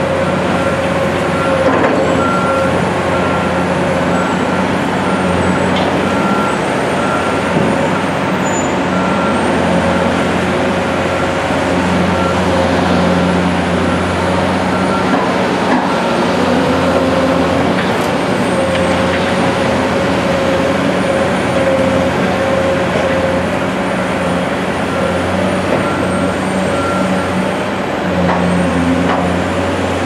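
Heavy diesel engines of a Caterpillar 345C hydraulic excavator and a waiting transfer dump truck running steadily as the excavator digs and loads dirt. A faint, regular beeping, like a reversing alarm, runs through the first half and returns briefly near the end.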